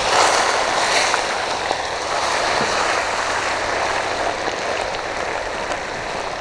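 Hot oil sizzling and bubbling hard as raw potato sticks are tipped into a deep pan to fry as French fries. The sizzle is loudest in the first second as the potatoes go in, then eases slightly.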